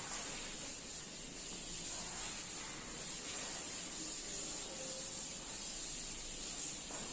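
Chalkboard duster rubbing across a blackboard in soft strokes, over a steady high hiss.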